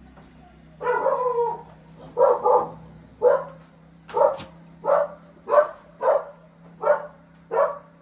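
A dog barking: one drawn-out bark about a second in, then a run of about ten short barks, roughly one or two a second.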